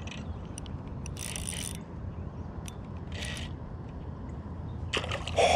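Spinning reel being cranked to bring in line, a soft mechanical gear and ratchet sound, with short bursts of hiss about a second in, at about three seconds and near the end.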